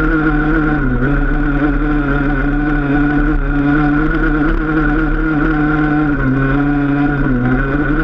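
Enduro motorcycle engine running steadily under way, its pitch dipping briefly about a second in and twice near the end as the throttle eases off and comes back.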